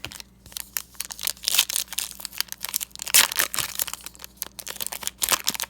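A trading card pack's wrapper being torn open and crinkled by hand, a busy run of crackling and tearing with louder rips about a second and a half and three seconds in.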